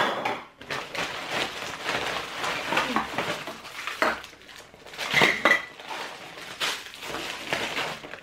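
Baking molds and packaged kitchen utensils clattering and clinking as they are taken out of a plastic shopping bag and set down on a table, with bag rustling in between. A louder clink with a short ring comes about five seconds in.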